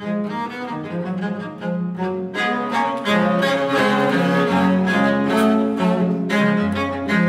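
Two cellos playing a fast duet movement, a stream of quick, short bowed notes in two parts, getting louder about two and a half seconds in.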